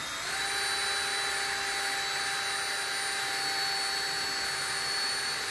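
Electric drill running at a steady speed, drilling a hole through an ATV handlebar; its motor whine rises to speed at the start and then holds one even pitch.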